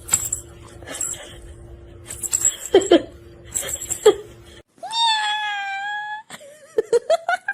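A cat meowing: one long drawn-out meow about five seconds in, then several short quick meows near the end, after a few light knocks and short cries.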